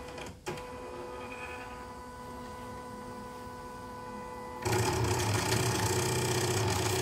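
CNY portable computerized embroidery machine, just switched on, running with a steady electric hum. About two-thirds in, a much louder rough buzz starts from the embroidery unit's drive. The unit's Y-axis hoop drive is jammed.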